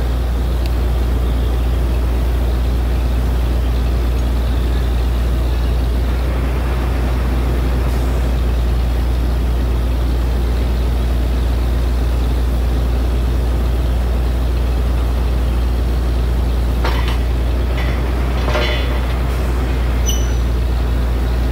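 Borewell drilling rig's engine running steadily under load: a loud, even drone with a deep hum. A few short noisy bursts come near the end.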